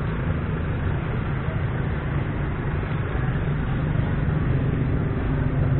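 Steady roadside traffic noise, a low, even rumble of passing vehicles.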